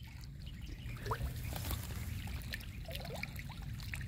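Shallow lake-edge water trickling and lapping, under a steady low rumble, with a few faint short chirps.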